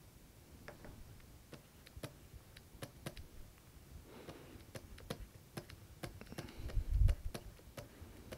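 Stylus tapping and scraping on a pen tablet during handwriting: a scatter of small, irregular clicks, with a soft low thump about seven seconds in.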